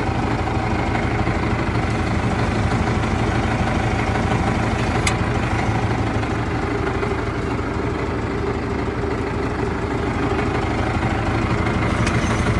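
Mahindra 4550 tractor's diesel engine idling steadily close by, with a single brief click about five seconds in.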